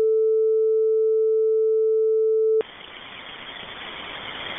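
A steady single-pitch tone over a police radio channel, cutting off suddenly about two and a half seconds in, followed by radio static hiss that slowly grows louder.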